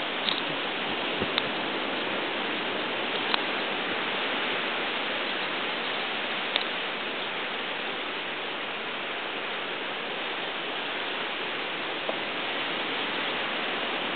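Steady wash of surf on a rocky shoreline, an even hiss with no rise and fall of single breakers, with a few faint clicks of the camera being handled.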